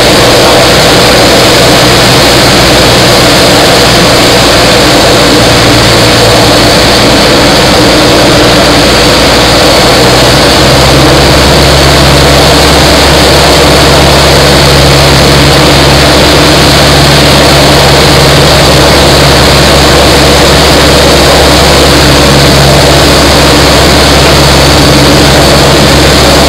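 Single-engine propeller airplane's piston engine and propeller heard loud from inside the cockpit, a steady drone with airflow hiss; the engine note changes about eleven seconds in, a power change on the descent toward the runway.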